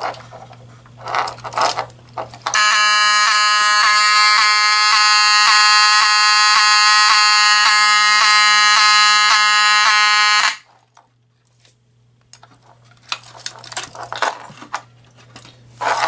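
Wheelock 7002T-24 mechanical fire alarm horn (Spectronics-branded, 24-volt) sounding one steady, continuous buzzing horn tone for about eight seconds. It starts a couple of seconds in and cuts off abruptly. Key rattles and clicks at the pull station come before and after it.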